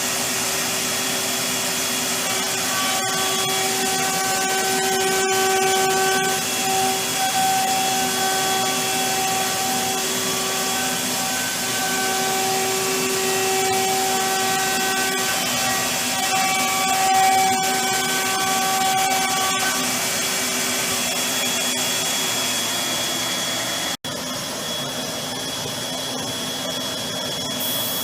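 AXYZ PANELBuilder 6036 CNC router running: a steady rush of machine noise with several whining tones that start and stop repeatedly as it works. About 24 s in there is a sudden break, after which a quieter, steadier hum remains.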